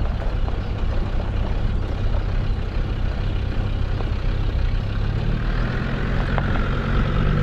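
Land Rover driving along a green lane: steady engine and tyre rumble with a few light knocks and rattles. A faint whine joins in near the end.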